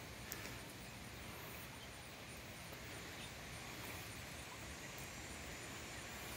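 Faint outdoor backyard ambience: a steady low hiss with faint, evenly spaced high ticks and one sharp click about a third of a second in.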